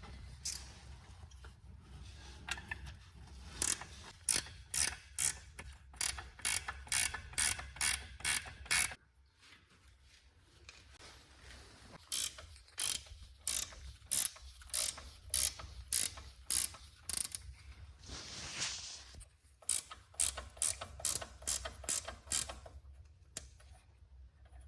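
Hand ratchet wrench clicking in quick repeated strokes, about three clicks a second, in several runs with short pauses between.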